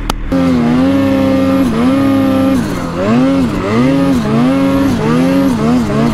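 Snowmobile engine under throttle, coming in abruptly just after the start, its pitch repeatedly dipping and climbing again about once a second, the dips quicker toward the end, as the throttle is worked on and off.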